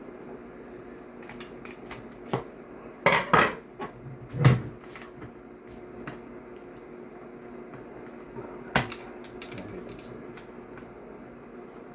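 Screwdriver and metal gun parts clinking and knocking while a stubborn, over-tight screw is worked loose on an airsoft rifle. A few scattered clicks, a cluster of louder knocks about a third of the way in, and one more sharp knock later.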